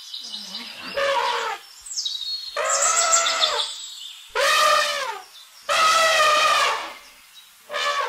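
Elephant trumpeting: a series of about five short, blaring trumpet calls, each under a second, some sliding down in pitch at the end.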